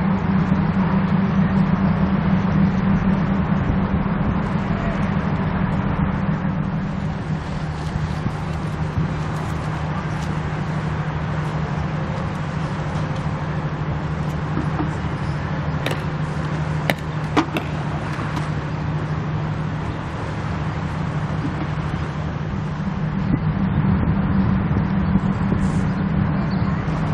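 Steady low engine drone with a constant hum under a rushing noise of wind and water, broken by a few sharp clicks about two-thirds of the way through.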